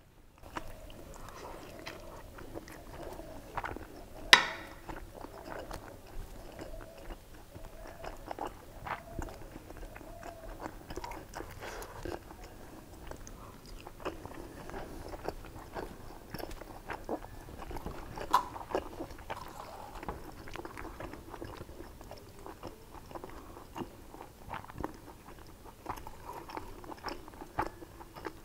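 Close-up chewing and mouth sounds of a man eating mutton biryani from a spoon, with many small irregular clicks. One sharp, louder click comes about four seconds in.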